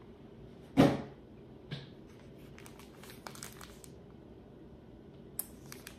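A single thump about a second in, then light crinkling and rustling of a plastic poly mailer bag being handled.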